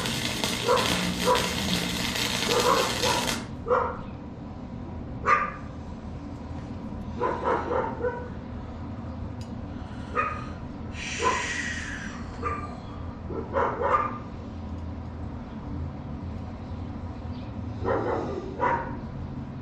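Flux-core arc from a Forney FC125 welder crackling, then cutting off abruptly about three and a half seconds in. A dog barks on and off, in short calls every few seconds, before and after the arc stops.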